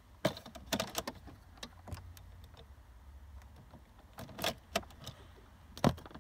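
Scattered clicks and light rattling of a car key ring hanging from the ignition, with a few louder knocks, over a faint steady low hum.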